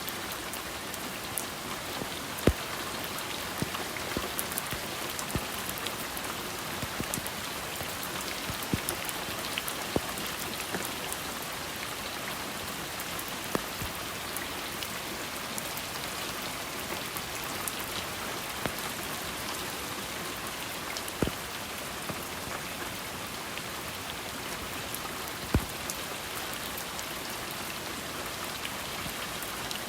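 Steady rainfall, an even hiss of falling rain with scattered louder drops striking a surface every few seconds.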